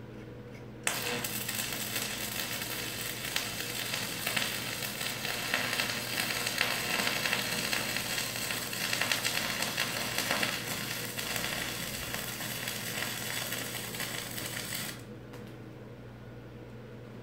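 Stick (arc) welding on a steel post-to-beam joint: the arc strikes suddenly about a second in and crackles and sizzles steadily for about fourteen seconds, then cuts off. A steady low hum runs underneath.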